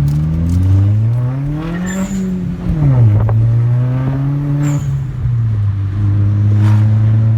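Volkswagen Jetta GLI's turbocharged 2.0-litre four-cylinder accelerating hard, its note rising for about two seconds, then dropping sharply as the throttle comes off, then running fairly steady. Short hissing sounds cut in about two seconds in, near the middle and near the end.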